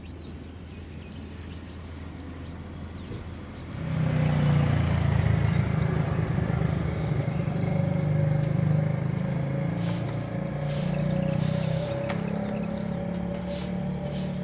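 Outdoor morning ambience: a vehicle's engine comes up about four seconds in and keeps running, easing off slowly, while birds chirp.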